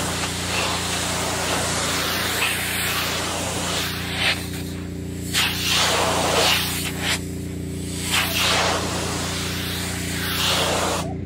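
High-pressure soft-water spray from a pressure-washer wand hitting solar panels, a loud hiss and splatter that swells and falls as the wand moves and drops away briefly twice. A steady machine hum runs underneath.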